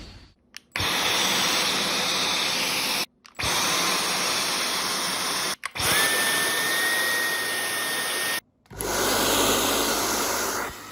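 Layers of a Rasengan sound effect played one after another: four stretches of steady, dense whirring noise, each a couple of seconds long and cut off by a short silence. The third layer carries a steady high whistle on top of the noise.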